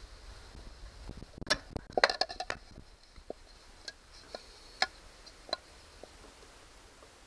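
Small metal clicks and clinks as needle-nose pliers work the fuel-line clamp under a lawnmower carburetor. A quick cluster comes about one and a half to three seconds in, then single clicks roughly every half second.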